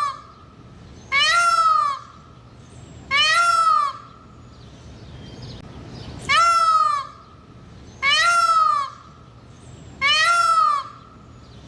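Peacock calling repeatedly: five loud wailing cries, each under a second long and arching up then down in pitch, spaced about two seconds apart with a longer pause midway.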